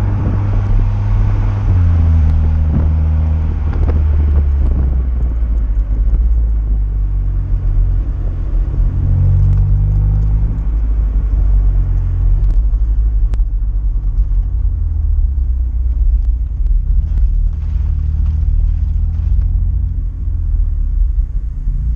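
Exhaust note of a VW Golf 7 GTI Clubsport's turbocharged 2.0-litre four-cylinder through a Friedrich Motorsport 76 mm cat-back system with front silencer, heard right at the tailpipes: a low rumble at low revs while driving, its pitch dropping about two seconds in and shifting up and down again around ten seconds.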